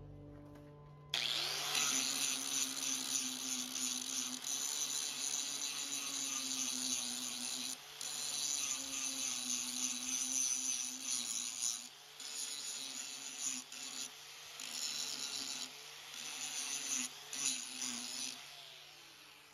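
A handheld power tool runs under load, with a strong hiss over a motor pitch that dips and recovers several times as it bites. It starts about a second in and fades out near the end.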